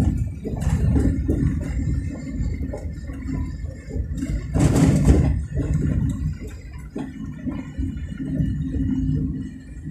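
Low, uneven rumble of a moving vehicle on the highway, with wind buffeting the microphone in gusts; the loudest gust comes about five seconds in.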